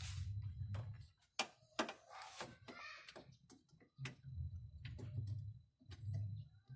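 Irregular clicks, taps and light plastic rattling from hands fitting an H4 halogen headlight bulb into the back of a car's headlight housing, with a low rumble coming and going underneath.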